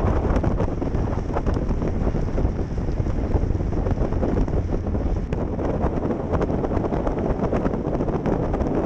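Steady wind rumble buffeting a camera microphone moving at speed behind a downhill longboarder, with vehicle and road noise underneath and a scatter of small ticks.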